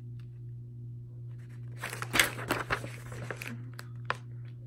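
A large printed paper sheet rustling and crinkling as it is handled, starting about two seconds in, with a few light ticks near the end, over a steady low hum.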